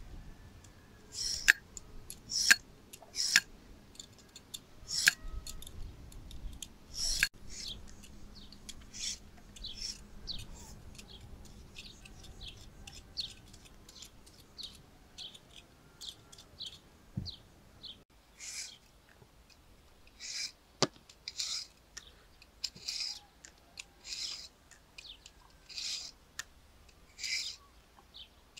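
A hand vegetable peeler scraping down a raw carrot in short repeated strokes, shaving it into long thin ribbons.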